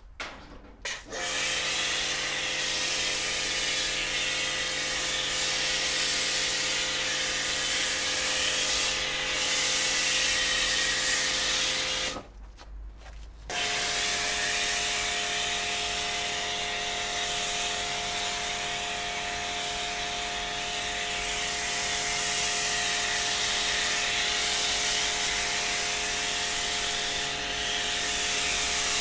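An electric power tool's motor running steadily with a hiss, stopping for about a second near the middle, then starting again at a slightly different pitch.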